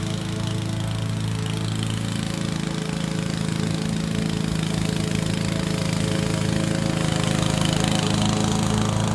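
Honda self-propelled walk-behind lawn mower's single-cylinder four-stroke engine running steadily under load as it cuts and mulches thick buffalo grass, growing louder as it comes closer.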